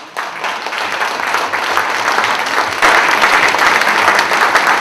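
Audience applauding with many hands clapping, building up and growing louder about three seconds in.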